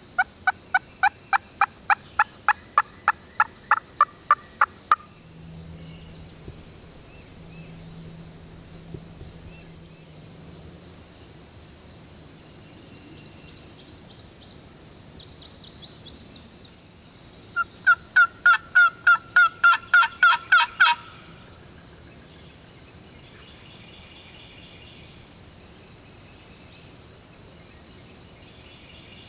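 Two long runs of loud wild-turkey yelps, evenly spaced at about four a second: one at the start lasting about five seconds, and a second about two-thirds of the way through. A steady faint high-pitched hum runs underneath.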